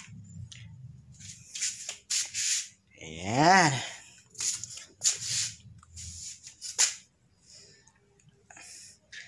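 A person's breathy puffs and a low rumble of handling, with one drawn-out voiced groan about three seconds in that rises and then falls in pitch.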